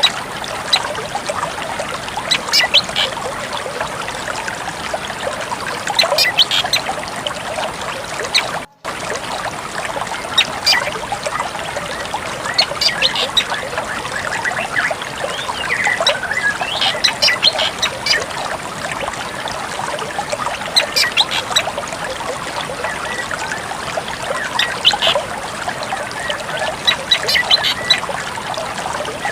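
Drongo calls, short bursts of sharp high notes repeated every few seconds, over a steady trickle of running water. The sound cuts out completely for a moment about nine seconds in.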